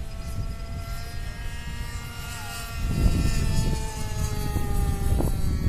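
Seagull Spacewalker RC model airplane's engine and propeller buzzing in flight, its pitch slowly falling. Wind rumbles on the microphone, louder from about halfway through.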